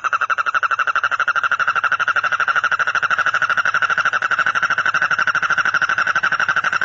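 A frog calling in one unbroken, fast-pulsed trill: a rapid buzzing rattle held on a steady pitch.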